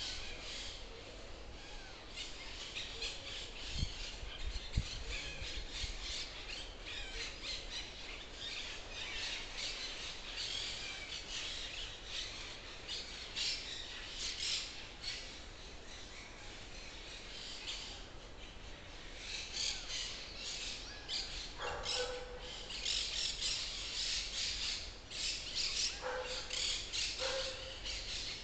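Forest birds chirping and calling in a dense, continuous chorus of short high chirps. From about two-thirds of the way in, a few lower squawking calls join them. Two brief low bumps come about four and five seconds in.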